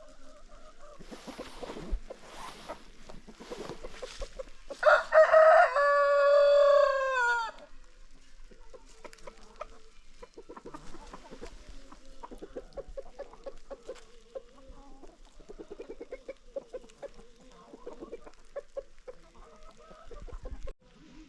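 Free-range chickens: a rooster crows once, loud, about five seconds in, one long call that drops in pitch at the end. Hens cluck softly in short calls before and after it.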